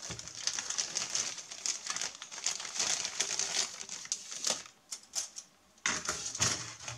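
Thin clear plastic bag crinkling and rustling as plastic model-kit sprues are handled and slid out of it, with many small crackles. It goes quiet for a moment before five seconds in, then crinkles again briefly about six seconds in.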